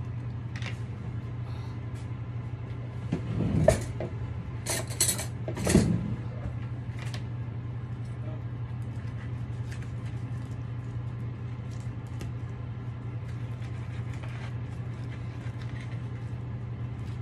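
Clatter of plate and utensils as cooked ribs are handled on a kitchen counter: scattered clicks, with a cluster of louder knocks and clinks about four to six seconds in, over a steady low hum.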